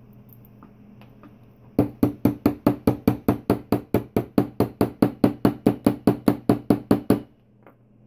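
Rapid, even knocking of the H10 padlock's steel body rapped against the tabletop, about five knocks a second for some five seconds starting about two seconds in, to work the wafer cylinder back into place.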